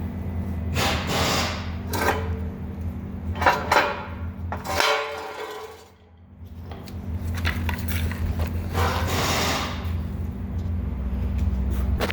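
A few short metal clanks and scrapes of tools and engine parts being handled during an engine teardown, over a steady low hum.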